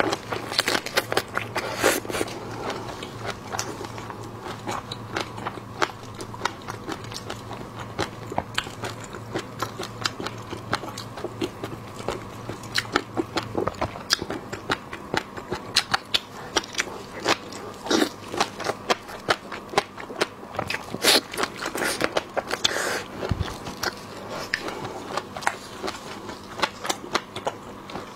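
Close-miked eating of large prawns: lips sucking at a prawn head and chewing roe-topped prawn meat, with a constant patter of small wet clicks and crackles from shell and roe.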